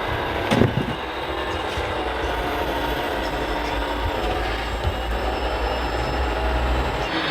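RC model construction machinery running: the steady whine of small electric motors and hydraulic pumps over a low hum, with a sharp clunk about half a second in. The low hum stops near the end.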